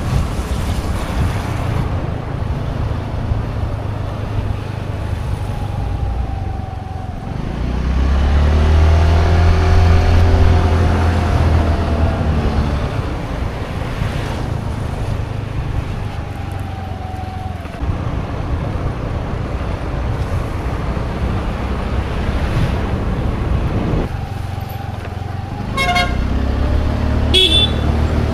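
A road vehicle's engine running as it is driven, heard while riding in it, the engine note swelling and rising then falling about a third of the way in. Near the end a horn toots twice, briefly.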